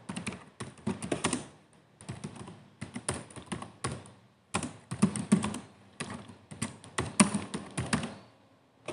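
Typing on a computer keyboard: quick runs of key clicks in short bursts with brief pauses between them.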